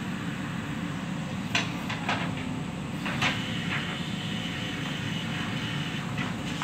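JCB 3DX backhoe loader's diesel engine running steadily under load while the backhoe bucket works loose soil. A few sharp metallic clanks from the bucket and arm come about one and a half to three and a half seconds in, and once more near the end.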